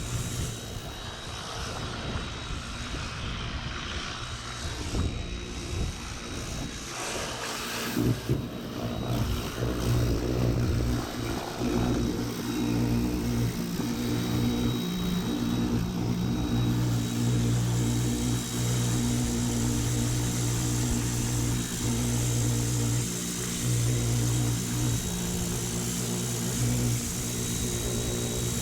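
Pressure washer running steadily, its motor giving a continuous drone.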